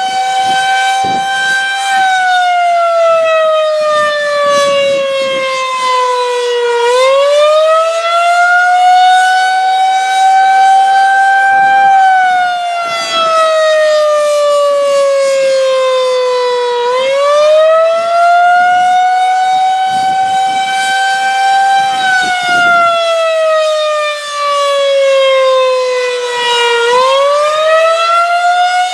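Federal Signal 2001-130 electromechanical outdoor warning siren sounding a wailing attack signal: the tone climbs quickly, holds at the top, then slides slowly down, once about every ten seconds, nearly three times over.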